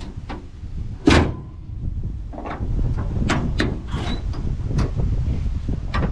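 The hood of a 1973 Mustang Mach 1 dropping shut with one loud slam about a second in. A series of light clicks follows as the chrome twist-lock hood pins are turned by hand.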